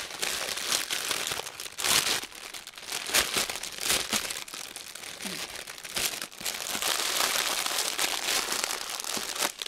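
Clear plastic bag crinkling and rustling as a bundle of small diamond-painting drill packets is handled and pressed into it, with louder surges about two, three and four seconds in.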